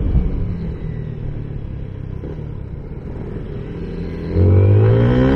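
Yamaha Sniper 155 motorcycle's single-cylinder engine under way. It runs low and quietly for about four seconds, then the level jumps and the revs climb steadily as the throttle opens. This is an ordinary clutch gear change, with a break in power before the pull resumes.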